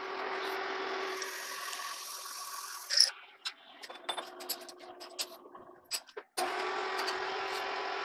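Lathe motor running with a steady hum, then about three seconds in a sharp click followed by scattered metallic clicks and knocks as steel bar stock is handled and set in the lathe chuck; the steady hum returns near the end.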